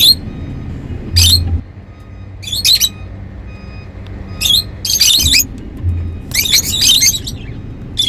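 Lovebirds chirping and squawking in short, high-pitched calls, scattered at first and coming thick and fast over the last three seconds.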